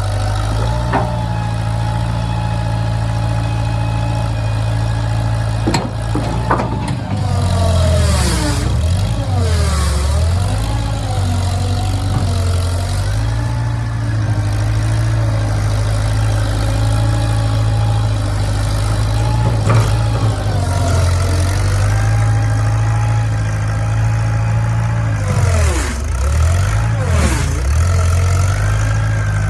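An engine running steadily, its pitch sagging and wavering twice: around eight to ten seconds in and again near the end, before it picks back up.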